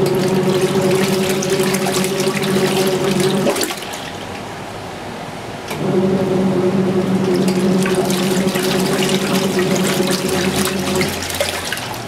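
Kuppet twin-tub portable washer agitating a full load in soapy water: the wash motor hums as the pulsator churns and sloshes the water. The motor stops for about two seconds a few seconds in, then runs again for about five seconds before stopping near the end. The pauses are the wash cycle switching the pulsator's direction.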